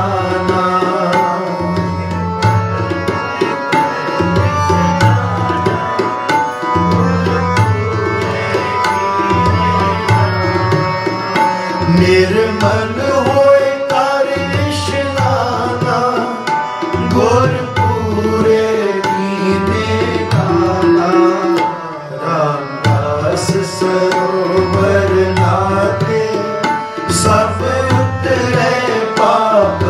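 Harmoniums playing a melody of held, reedy notes over a tabla keeping a steady rhythm, with repeated deep bass-drum strokes: an instrumental passage between the sung lines of a kirtan.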